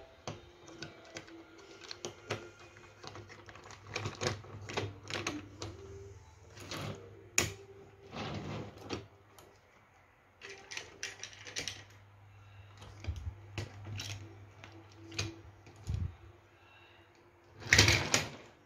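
Wooden toy trucks and snap-on plastic containers being handled, clicking and knocking irregularly on a metal tabletop. A louder, longer rustling thump comes near the end.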